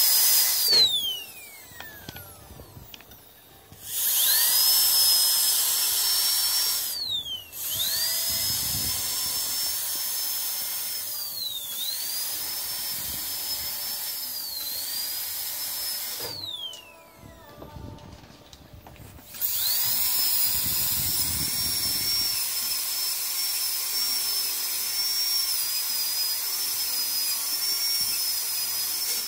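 Disposable high-speed dental drill handpiece whining at a high, steady pitch with a hiss of air, started and stopped several times; each stop is a falling whine as it spins down, and twice while running the pitch dips briefly and recovers.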